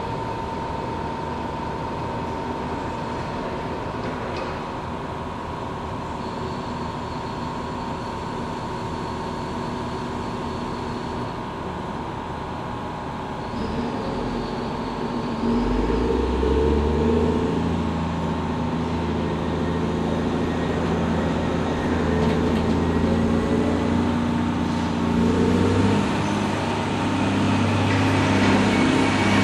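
Caterpillar 160M motor grader's diesel engine running steadily with a thin steady whine over it, then revving up and running louder from about halfway through as the grader moves.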